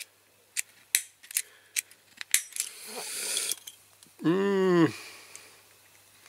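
Small sharp metal clicks and taps as a steel punch and a die-cast toy tractor body are handled, then a brief scraping rustle. Near the end a man gives a short hummed 'hmm', rising then falling in pitch, the loudest sound.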